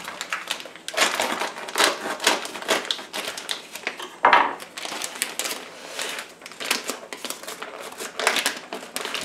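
Vacuum-seal plastic bag crinkling and crackling in quick, irregular clicks as it is slit with a knife and pulled open, with a louder rustle about four seconds in.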